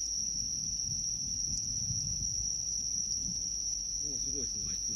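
Crickets trilling in a steady, high-pitched chorus, over a low rumble.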